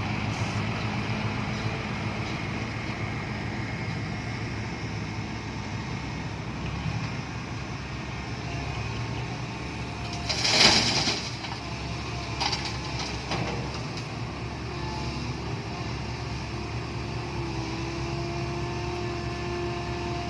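Diesel engines of an excavator and a dump truck running steadily during loading. A brief, loud rush of noise comes about halfway through.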